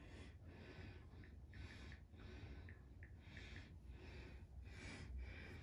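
Near silence, with faint, soft breathing close to the microphone.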